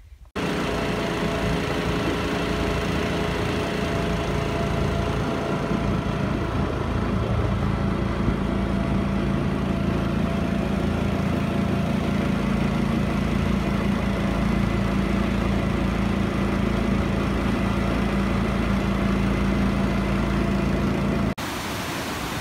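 Small aluminium boat's outboard motor running at a steady speed, a steady hum with several held tones. About a second before the end it cuts off abruptly and the rush of a waterfall takes over.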